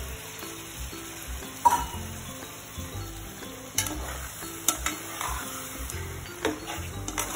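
Chicken pieces sizzling in oil in a frying pan as a ground paste is stirred in with a metal slotted spatula, with a few sharp clicks of the spatula against the pan.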